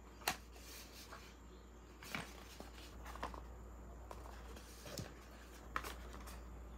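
Small cardboard product box handled by hand: light rustling and scraping of fingers on card, broken by a few sharp taps and knocks, the last ones near the end as the box is set down on a table.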